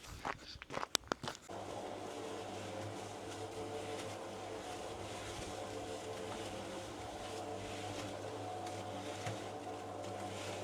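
A few crunching footsteps. Then, about a second and a half in, a machine starts running with a steady, unchanging hum made of a low tone and a higher drone.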